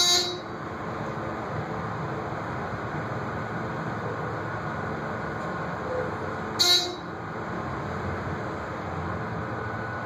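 ThyssenKrupp hydraulic elevator car travelling down with a steady ride noise. A short electronic beep sounds twice, about six and a half seconds apart, each one marking the car passing a floor.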